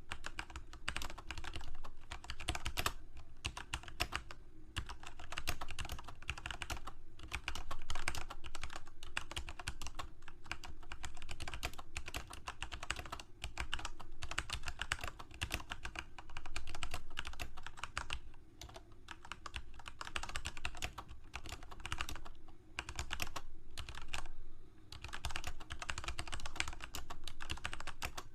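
Computer keyboard being typed on, a fast run of key clicks in bursts with brief pauses between them.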